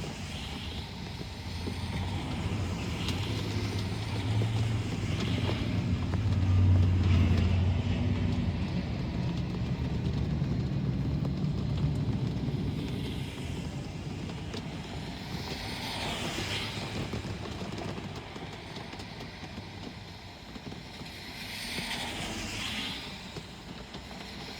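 Road traffic in the rain: a low engine rumble swells and fades over the first half, loudest about seven seconds in. Then cars swish past on the wet road, about three times near the end.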